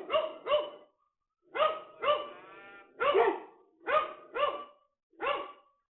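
A dog barking, about eight barks coming in loose pairs and threes with short pauses between them.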